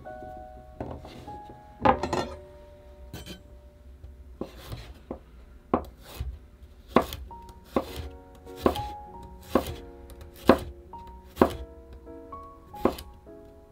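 Chef's knife slicing peeled garlic cloves on a wooden cutting board: sharp knocks of the blade hitting the board, a few scattered at first, then about one a second. Soft background music plays underneath.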